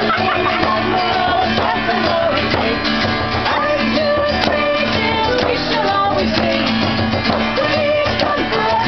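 A live acoustic band: steel-string acoustic guitar strummed and a hand-held frame drum struck in a steady beat, with several voices singing together.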